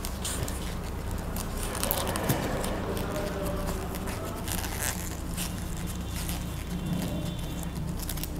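Floral tape being stretched and wound around a wire flower stem: small crackles and scrapes from the tape and fingers, over a steady low hum.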